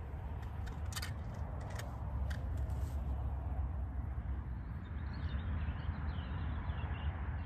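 Steady low wind rumble and hiss on the microphone, with a few sharp clicks in the first three seconds and faint bird chirps near the end.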